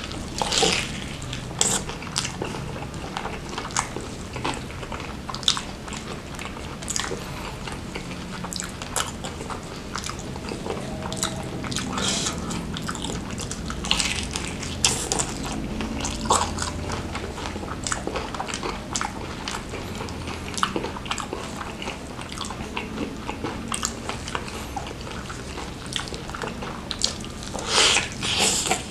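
Close-miked biting and chewing of crispy fried chicken coated in chilli sambal: a steady run of crunching and crackling mouth sounds, with louder crunchy bites about half a second in, about halfway through and near the end.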